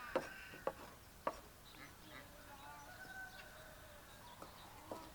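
Chickens clucking softly, with three sharp knocks in the first second and a half.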